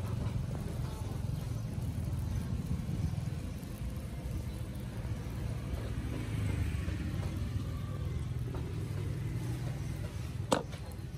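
Steady low rumble of street traffic, with one sharp knock about ten seconds in as a cleaver cuts through dough onto the cutting board.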